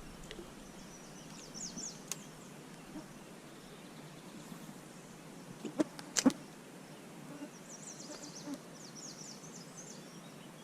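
Songbird singing, with two spells of quick high chirps over a faint steady outdoor background. A few sharp clicks come about two seconds in and again around the middle.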